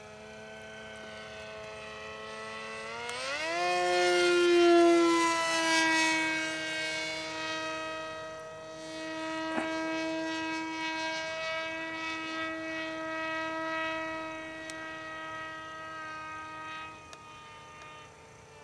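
Electric motor of an R/C F-16 jet model in flight: a steady high whine with many overtones. About three seconds in, the pitch climbs sharply and the sound peaks as the throttle opens, then holds at the higher pitch, fading and swelling as the plane flies around.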